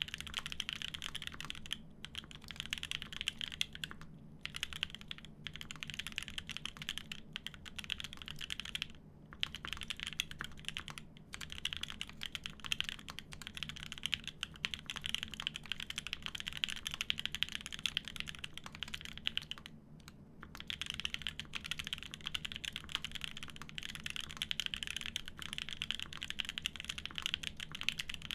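Continuous fast typing on a Semo TKL custom mechanical keyboard with an aluminium plate, lubed Konpeitou switches and GMK keycaps: a dense stream of key clacks, broken by a few short pauses.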